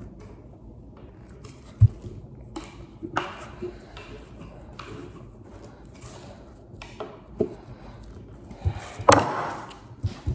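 Hex key clicking and clinking on the metal adapter screws of a modular below-knee prosthesis as they are tightened, with knocks from the pylon and socket being handled. There is a dull thump about two seconds in and the loudest clatter near the end.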